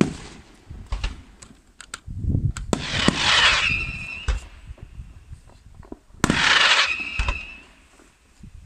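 Aerial firework shells bursting in a night display: a sharp bang at the start and several lighter bangs, then two loud hissing bursts about three and six seconds in, each trailing off in a short whistling tone.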